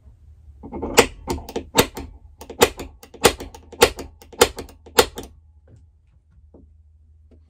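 A run of sharp taps, about ten strong ones a little over half a second apart with lighter clicks between, stopping about five seconds in: hand tools working on a small metal bracket on a workbench.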